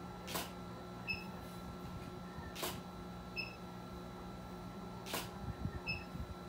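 Camera shutter firing three times, about two and a half seconds apart, with short high beeps between the shots, over a steady low hum.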